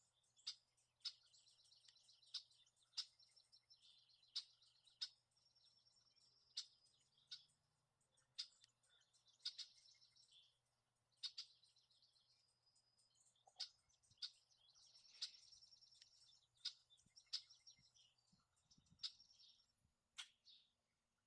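Faint songbirds chirping and trilling: sharp high chirps about every second, between rapid buzzy trills.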